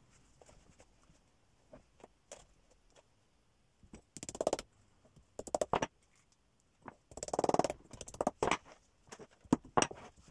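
Cord being pulled and tightened around a felt hat on a wooden hat block: several short scratchy bursts of friction as the string rubs over the felt. The longest comes about seven seconds in, with a few light handling clicks between.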